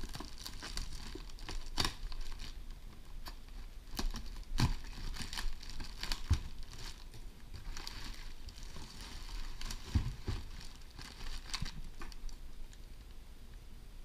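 Clear plastic air-column cushion packaging crinkling and rustling as hands pull and open it, with a few sharper knocks along the way. It quietens near the end.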